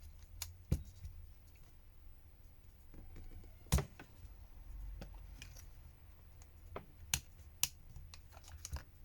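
Scattered sharp clicks and taps of tools and small plastic phone parts being handled as a flex cable connector is unclipped and the plastic frame is worked off the phone. The loudest click comes a little under four seconds in, with a quick cluster near the end.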